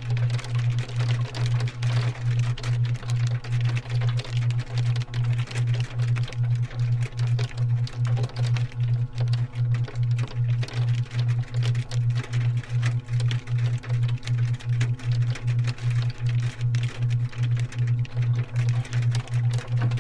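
Hailstorm ambience: hail falling on a cabin's roof and window as a dense spray of fine ticks, under a loud low hum that pulses evenly about three times a second.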